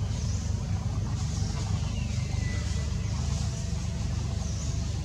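Steady low motor rumble, like a running engine, with short high chirps repeating every second or so and a faint falling whistle about two seconds in.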